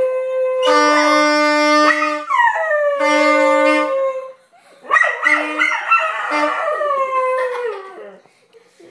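Dog howling along with a saxophone: the sax plays held notes with short breaks while the dog's howls slide down in pitch over them. The howling is thickest about five to seven seconds in, and both fade near the end.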